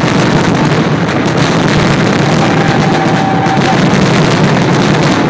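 Fireworks finale: a dense, continuous barrage of rapid-fire bangs from many shells bursting at once, loud throughout.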